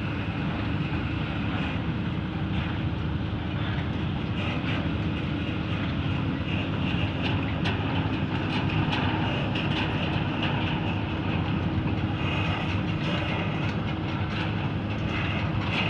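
Tracked excavator travelling: its diesel engine runs steadily under a continuous rattle of the steel tracks, with small irregular clanks.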